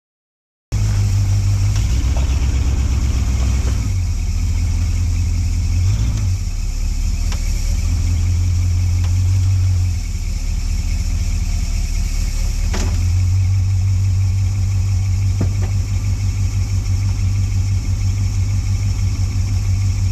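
An off-road vehicle's engine running at low revs, the revs rising and falling several times, cutting in abruptly under a second in. A couple of sharp knocks come through over the engine.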